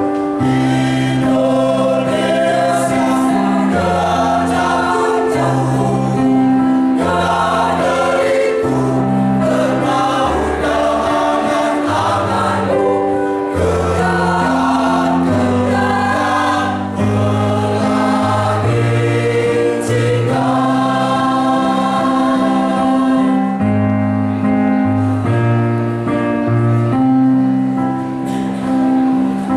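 Choir singing in harmony, holding chords that change about every second, without a break.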